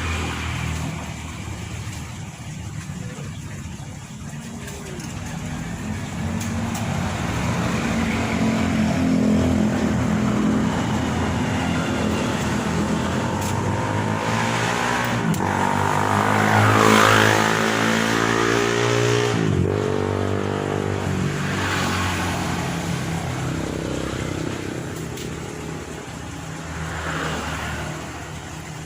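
A motor vehicle's engine, growing louder to its peak about two-thirds of the way through, with its pitch bending as it goes by, then fading away.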